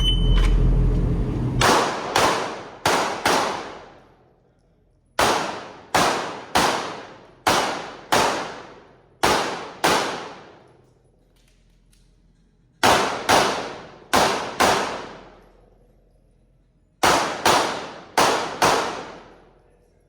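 A shot timer beeps briefly at the start, then a 9mm Glock 19X pistol fires about nineteen rapid shots, mostly in quick pairs, in four strings with short pauses between them as the shooter moves through a competition stage.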